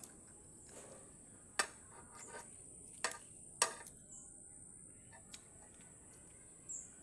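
Eating utensils clicking against a dish or bowl during a meal: three sharp clinks plus a few lighter taps, over a faint steady high hiss.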